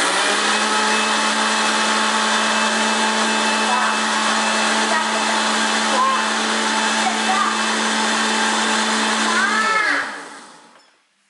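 Countertop blender motor running steadily and super loud as it blends frozen banana chunks, then switched off about ten seconds in, its pitch dropping as it winds down.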